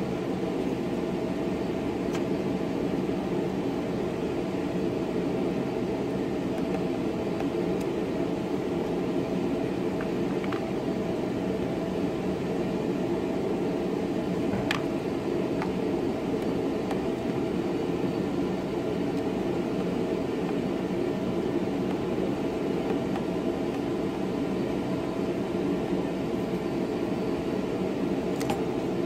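Steady whir of a fan, with a few faint clicks here and there, the clearest about halfway through.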